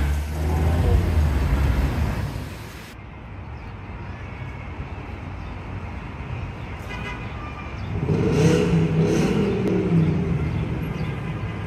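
City street traffic: a motor vehicle passes loudly at the start, and another vehicle engine swells up and passes about eight seconds in, over steady street noise.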